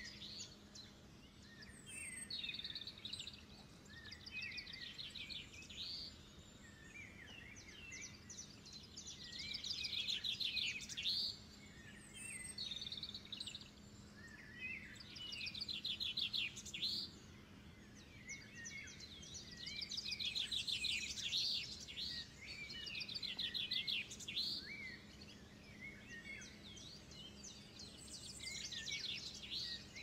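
Small songbirds singing and chirping: quick high trills mixed with short chirps and warbled notes, in phrases that come and go every few seconds.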